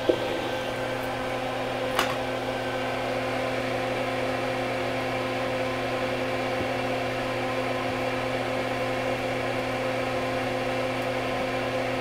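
Soldering fume extractor fan running with a steady hum, with one small click about two seconds in.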